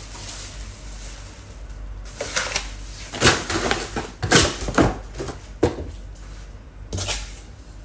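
A pressure cooker being handled: a run of irregular knocks and clunks as its lid and parts are moved and bumped, starting about two seconds in and stopping near the end.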